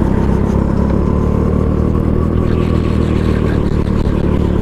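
Go-kart engine running at speed as the kart is driven through a corner: a steady low drone that holds level throughout.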